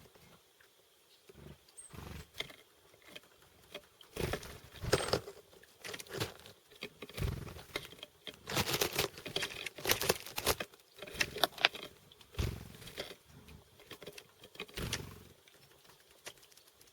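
Chickadees at a feeder in the snow: irregular pecking, tapping and rustling at seeds, with flutters of wings and a few faint high chirps. The busiest stretch is in the middle.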